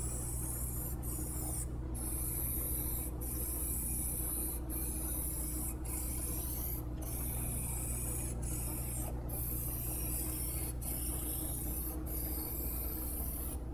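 Aerosol spray can of Plasti Dip Glossifier hissing as a top coat is sprayed on. The spray runs in passes broken by short pauses about once a second.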